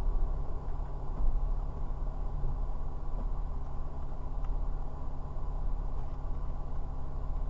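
Porsche Cayman R's flat-six engine idling steadily, heard from inside the cabin as a low, even rumble.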